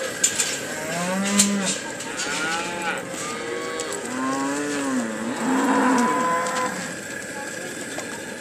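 Cattle bawling: several long, overlapping moos that rise and fall in pitch, from about a second in until near the seven-second mark. A few sharp knocks sound in the first second and a half.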